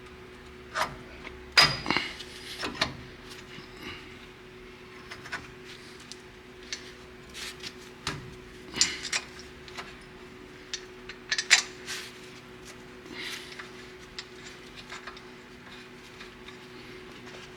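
Irregular metallic clinks, knocks and scraping from tools and brake parts being handled, over a steady low hum.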